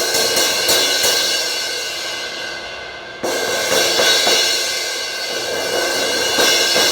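Sabian 18" HHX Evolution crash cymbal struck several times, with a hard crash about three seconds in, ringing out between the hits. It has a raspy edge from a crack running to the cymbal's edge.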